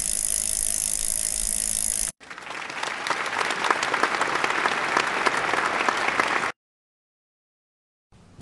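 Added sound effects: a steady hiss for about two seconds that cuts off sharply, then recorded applause for about four seconds that stops abruptly.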